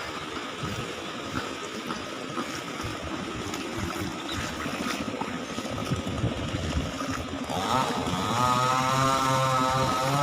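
Motorcycle engine running with rumbling wind and road noise; about three-quarters of the way through a louder, steady pitched drone sets in and holds.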